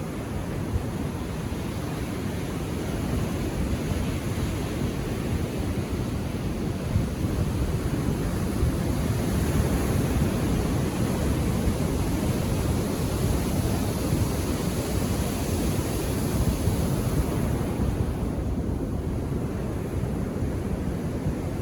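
Ocean surf washing onto a beach: a continuous rush of waves that builds a little in the middle and eases near the end.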